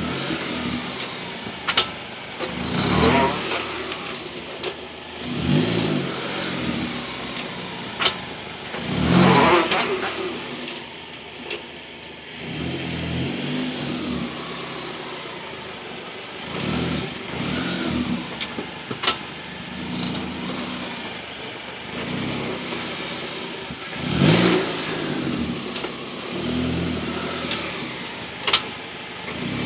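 Car rolling slowly forward and back with its engine running, and a creaking from the right front wheel that sounds like a rocking chair. It comes in repeated swells, with a few sharp clicks between.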